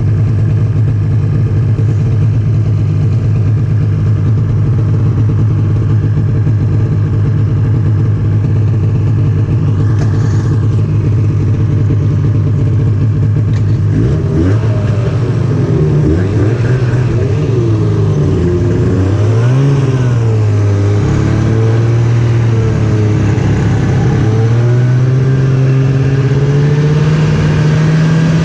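Snowmobile engine running at a steady pitch, then from about halfway on its pitch rises and falls again and again as the throttle is opened and eased, climbing once more near the end.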